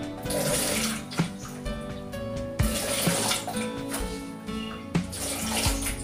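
Background music with a steady beat. A rushing, water-like hiss swells in and fades about every two and a half seconds.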